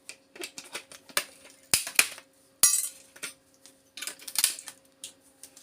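Salvaged parts from scrapped power adapters being handled, clinking and knocking together in a quick, irregular series of sharp clicks and clatters, the loudest a little under two seconds in, near the middle and again about three-quarters through.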